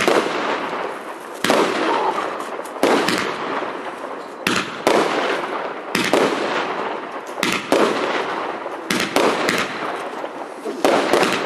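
Super Power 8609 multi-shot firework cake (battery) firing: about a dozen sharp reports, roughly one every second, some in quick pairs, with a steady crackling hiss of the bursting stars in between.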